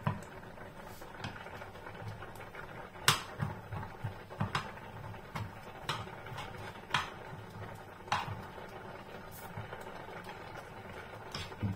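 A black plastic slotted spatula scraping and knocking against a nonstick frying pan while stirring sliced garlic and ginger frying in a little oil. There are irregular clicks and scrapes, and the sharpest knock comes about three seconds in.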